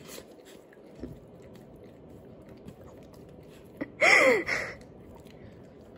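A golden retriever licking peanut butter off her nose and lips: soft, wet lip-smacking and tongue clicks. About four seconds in comes one short, louder vocal sound that falls in pitch.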